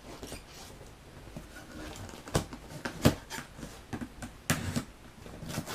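Hands handling a cardboard shipping box: scattered knocks and rustles, a few sharper ones in the second half.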